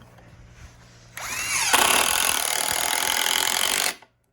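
Power drill driving a screw into wood: the motor spins up with a rising whine about a second in, runs loud and steady for nearly three seconds, then cuts off suddenly.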